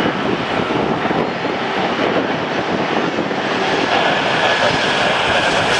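Twin turbofan engines of a British Airways Embraer E-jet on final approach, a steady jet noise that grows louder and brighter in the last couple of seconds as the aircraft nears. Wind buffets the microphone throughout.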